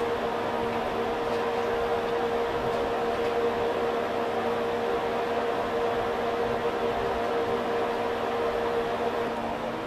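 Steady electrical hum and fan noise from racked radio broadcast equipment and its cooling, made of several hum tones over a noise bed. The strongest hum tone fades just before the end.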